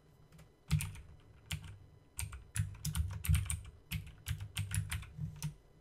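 Typing on a computer keyboard: a quick, irregular run of keystroke clicks that starts just under a second in.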